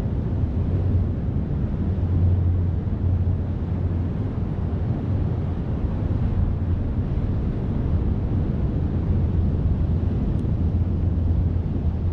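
Steady low rumble of wind buffeting the microphone, over the wash of surf breaking on the rocks.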